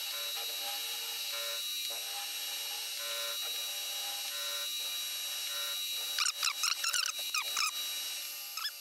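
Compressed air hissing steadily from a flexible nozzle to blow chips off the work, over the steady hum of a milling machine spindle running its cutter. A cluster of short squeaks comes about six to eight seconds in.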